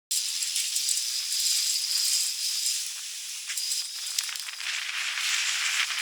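Steady rushing hiss of a sailing yacht under way, wind and water rushing past the hull, with a couple of faint clicks midway.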